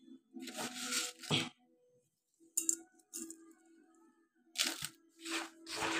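Coarse salt being sprinkled by hand over hog plum flower buds in a steel pot, in four short spills with gaps between, over a faint steady hum.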